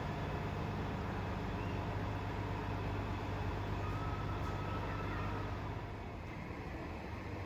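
Transit bus engine running with a steady low hum, easing off a little near the end.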